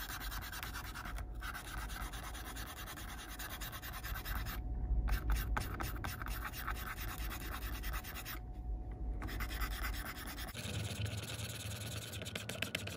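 Fibre scratch pen rubbed rapidly back and forth over the painted plastic side of an N gauge model coach, a dry scratching that takes off weathering overspray. It pauses briefly twice.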